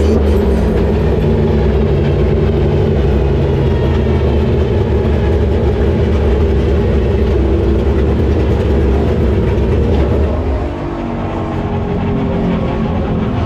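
Pro 4 short-course race truck's engine running steadily under way, its sound easing off about ten seconds in.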